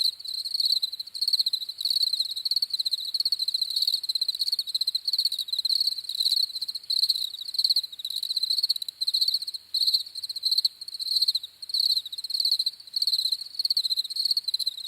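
Crickets chirping: a steady high-pitched trill in short pulsed chirps repeating about twice a second.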